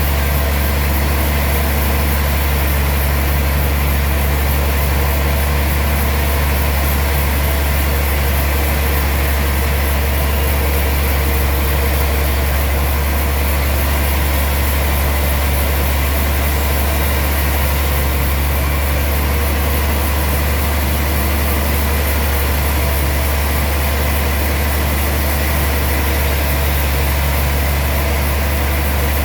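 Sawmill machinery running steadily with a deep, even hum and no change in load.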